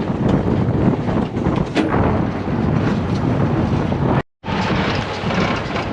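Tractor and Case IH large square baler running steadily, with wind buffeting the microphone. The sound cuts out completely for a moment just past four seconds in.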